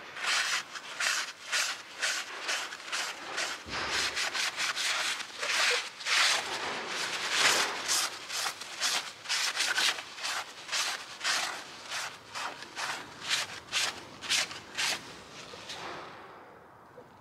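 Cloth rag rubbed quickly back and forth over the sooty combustion chamber face of a BMW M57 diesel cylinder head, wiping the carbon off the valves: a rapid run of wiping strokes, about three a second, that stops near the end.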